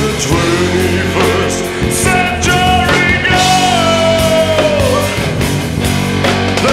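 Background rock music: a singer holding long, wavering notes over a full band.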